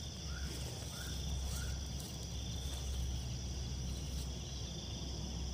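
Night crickets trilling steadily at two high pitches over a low hum. Three short, higher chirps repeat about every 0.6 s in the first two seconds.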